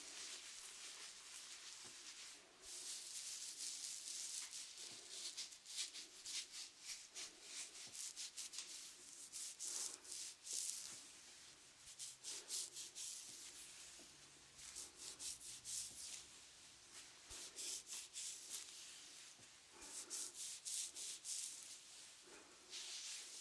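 Close-miked rubbing and scratchy crackling, in bouts of a few seconds with short lulls between them.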